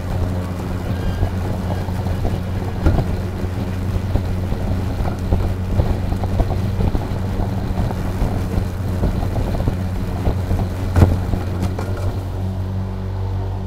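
EGO Power+ LM2135SP 56 V battery self-propelled lawn mower running while cutting grass: a steady low motor-and-blade hum with many small scattered ticks, and a sharp knock about eleven seconds in.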